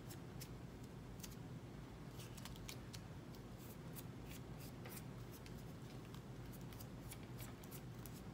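Faint, irregular little clicks and crackles of fingers pressing and folding the grip tape edges down onto a fingerboard deck.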